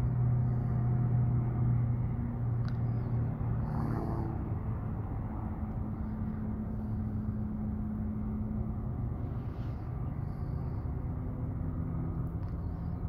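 Distant jet aircraft rumbling, a low steady drone that slowly fades.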